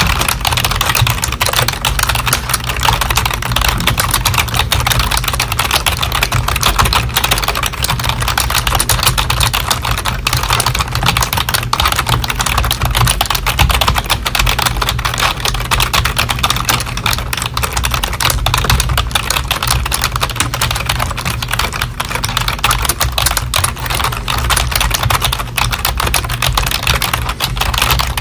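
Fast, continuous keyboard typing: a dense, unbroken clatter of key clicks at a steady pace, over a steady low hum.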